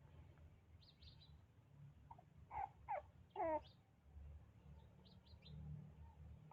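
Baby monkey giving three or four short squeaky calls about halfway through, the last one wavering and dropping in pitch. Fainter high chirps come about a second in and again near the end.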